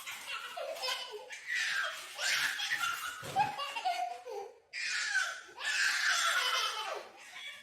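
A baby laughing in a string of high-pitched bursts with short breaks between them.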